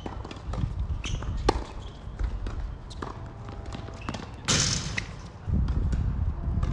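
Tennis rally on a hard court: sharp pops of racket strikes and ball bounces, the loudest about a second and a half in. A short burst of hiss comes about four and a half seconds in, over a low rumble.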